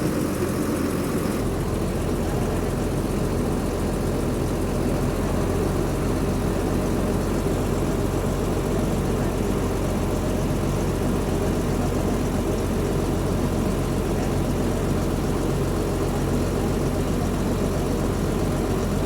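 Foton Auman cargo truck's diesel engine idling steadily, just after its oil change, with a low, even note that deepens about a second and a half in.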